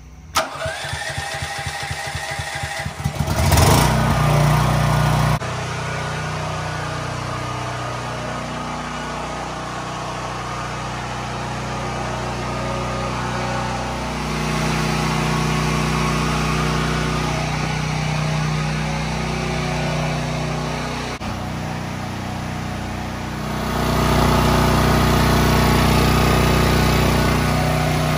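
Champion 10,000-watt dual-fuel portable generator, running on propane, electric-started: the starter cranks for about three seconds, then the engine catches and settles into a steady run. The level jumps abruptly a few times.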